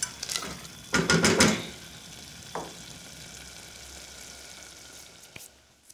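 Silicone spatula stirring and scraping a thick onion-tomato masala in a stainless steel saucepan, in two short bursts, then a light tap and a steady low sizzle as the sauce cooks down.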